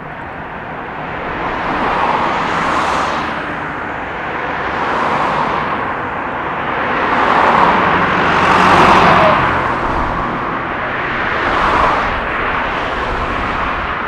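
Jet engine noise from an EVA Air Airbus A321-211's CFM56 turbofans at takeoff power: a loud rushing noise that swells and fades in waves, loudest about eight to nine seconds in.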